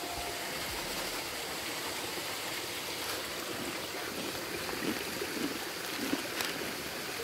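Mountain stream rushing steadily over rocks, with a few brief knocks between about three and six and a half seconds in.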